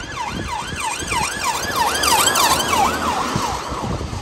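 Police car siren on a fast yelp, its pitch rising and falling about three times a second. It cuts off shortly before the end, leaving the hiss of tyres on a wet road.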